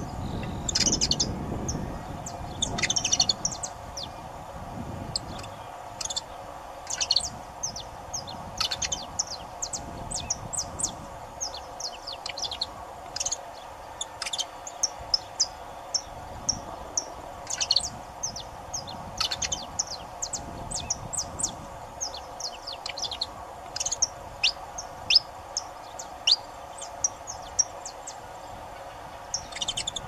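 Saffron finch singing: short phrases of sharp, high chirps, repeated every second or two, over a steady background hum.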